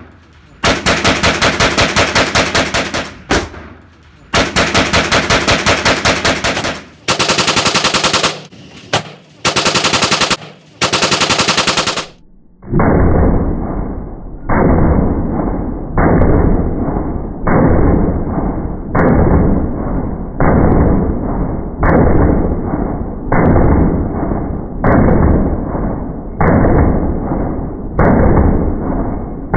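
CZ Scorpion EVO 9mm firing rapid strings of shots in an indoor range, six strings in the first twelve seconds. After that the sound turns deep and muffled, as if played back slowed down, with one drawn-out shot about every second and a half.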